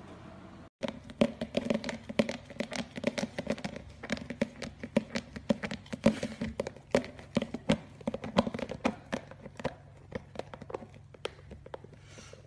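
Golden retriever puppy chewing and gnawing on a toy close to the microphone: a fast, irregular run of clicks and smacks.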